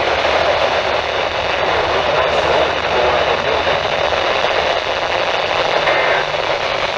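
Steady, loud static hiss from a weak NOAA Weather Radio signal, with the synthesized voice reading the warning buried beneath it.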